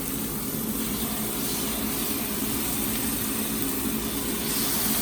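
Seasoned chicken breasts sizzling in hot oil in a frying pan, a steady hiss over a constant low hum; the sizzle grows louder near the end as another piece goes in.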